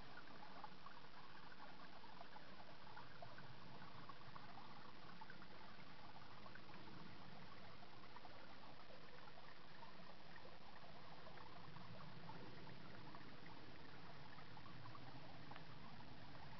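Spring water trickling over stones in a small, shallow brook, a steady, even sound.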